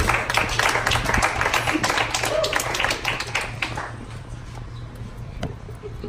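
Rapid hand clapping for about four seconds, fading to a few scattered taps, over a low steady hum.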